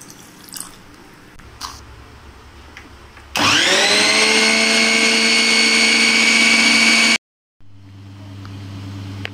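Electric food processor motor starting about a third of the way in, spinning up with a rising whine to a steady loud run while mixing flour and water into dough. It cuts off suddenly and a lower, quieter hum follows near the end.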